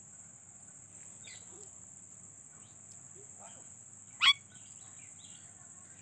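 Alexandrine parakeet giving one short, loud squawk about four seconds in, with a few soft chirps before it. A steady high insect drone runs underneath.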